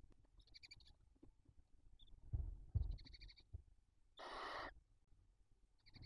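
Barn owls in a nest box: short, buzzy chittering calls three times, a pair of dull thumps about two and a half seconds in, and a half-second hiss about four seconds in.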